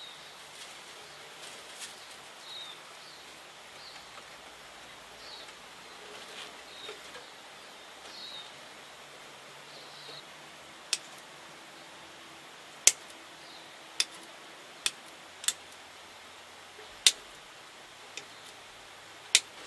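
Chicken wire being handled, then a series of about eight sharp clicks over the last nine seconds as pliers work and snip the wire.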